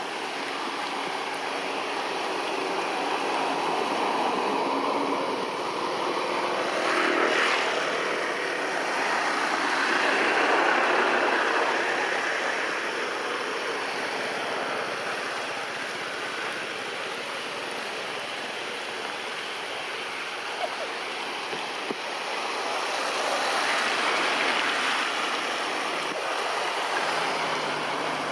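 Steady rain falling on tree leaves, swelling louder and easing again a couple of times.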